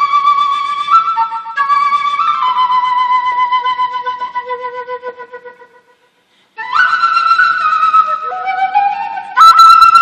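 Quena, the Andean end-blown cane flute, playing a solo melody. A long held note fades away to silence about six seconds in, and after a short breath the playing picks up again with a quicker run of notes.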